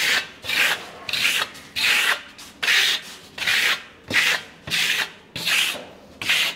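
Steel plastering trowel scraping over a half-set coat of siloxane render, misted with a little water, as it is smoothed. The strokes go back and forth evenly, about three every two seconds, each a dry rasping hiss.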